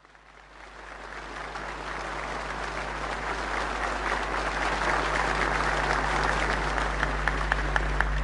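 Large seated audience applauding, the applause fading in over the first couple of seconds. Near the end it thins into separate claps. A steady low hum runs underneath.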